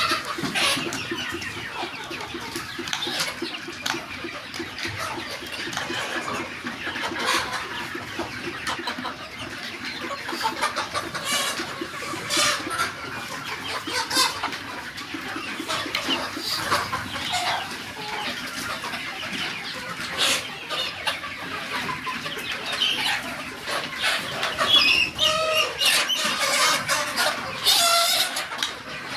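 A flock of desi chickens clucking continuously, with many short calls overlapping. Louder, longer calls come near the end.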